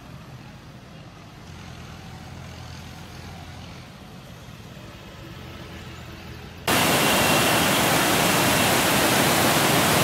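A motorcycle engine running with a low, fairly quiet hum as it rides past. After several seconds the sound cuts abruptly to the loud, steady rush of water pouring through a sluice gate and churning around concrete baffle blocks.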